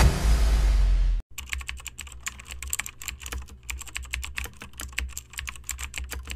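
Intro music cuts off suddenly about a second in, followed by a rapid, irregular run of computer keyboard typing clicks over a faint low hum.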